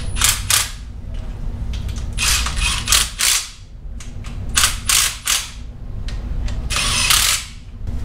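Cordless quarter-inch impact driver running in the main bearing cap stretch bolts of an LS engine block in several short bursts, rattling briefly as each bolt is snugged down rather than torqued.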